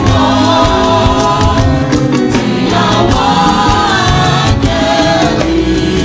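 Church choir singing a Yoruba hymn through microphones, sustained sung notes in several voices over percussion and bass accompaniment.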